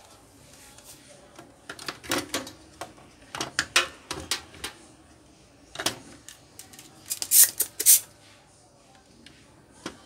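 Scattered clicks and knocks of a microwave oven's circuit board and repair tools being handled on a workbench, with the loudest cluster of sharp clacks about seven to eight seconds in.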